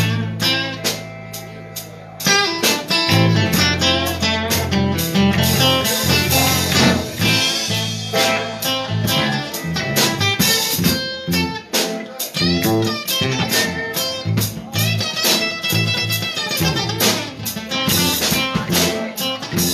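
Live blues band playing: electric guitars and electric bass with a drum kit. The band drops back briefly and comes in full again about two seconds in.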